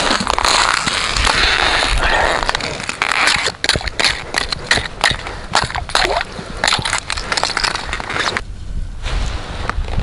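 Quick footsteps crunching on crusted snow on lake ice, a rapid irregular series of crunches with a short pause near the end.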